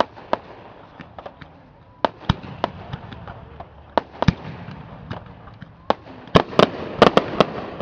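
Fireworks show: aerial shells bursting in irregular sharp bangs and crackles, a few scattered at first, then a rapid, louder cluster about six to seven and a half seconds in.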